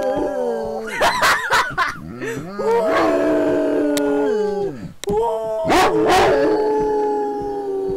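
A dog howling in long drawn-out notes that slide down in pitch at their ends. Short sharp yelps break in about a second in and again about six seconds in.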